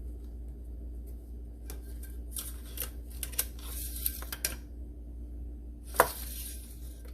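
Oil dipstick being handled while checking the engine oil level: scraping and light clicks from about two to four and a half seconds in, then one sharp click about six seconds in, over a steady low hum.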